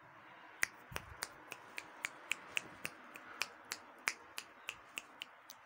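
A quick, even run of sharp clicks, about three or four a second, made by a person to catch a puppy's attention.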